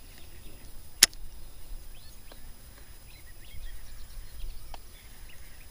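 A single sharp click about a second in, from a baitcasting reel as its spool is engaged to start the retrieve after a cast. Faint bird chirps come and go throughout.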